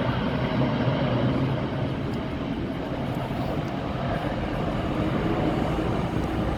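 A large jet airliner's engines, a steady broad rumble with a low hum underneath as the plane passes, easing slightly in the middle.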